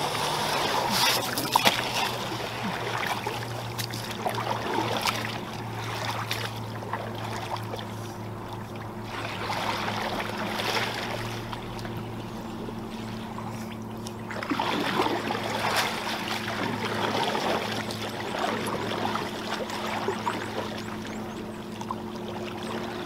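Lake water splashing and lapping as a canoe is pushed off a sandy beach with a paddle and paddled away, with a few louder splashes along the way. A steady low hum runs underneath.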